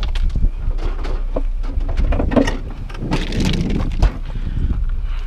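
Knocks, bumps and scraping from a mini fridge being handled and carried, over a steady low rumble, with a sharp knock about four seconds in.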